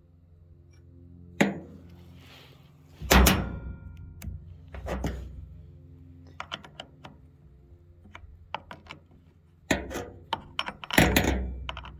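Hand work on a chainsaw's bar and chain while the chain tension is being reset: irregular metal clunks, knocks and small clicks, with a few louder clunks spread through.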